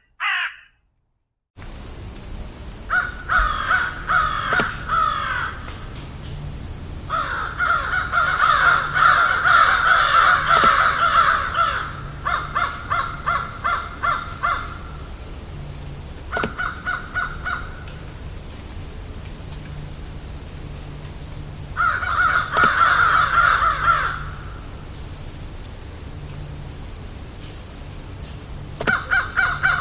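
Crows cawing: bouts of rapid, repeated harsh caws, several calls overlapping, breaking off and starting again every few seconds. A steady high hiss runs underneath, and there is a brief silent cut about a second in where one recording gives way to the next.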